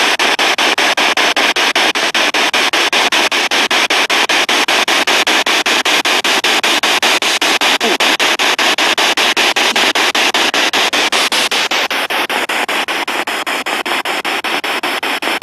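Spirit box radio scanner sweeping through stations and played through a portable speaker: a steady hiss of static chopped into rapid even pulses, about five or six a second.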